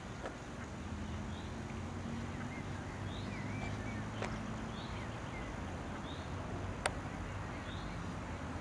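Short high bird peeps, about one a second, over a steady low hum, with two sharp clicks, the louder one near the end.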